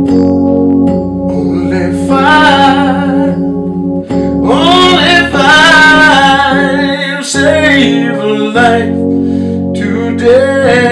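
Electronic keyboard playing sustained chords while a man sings long, wavering notes with vibrato over it, in phrases of a few seconds each.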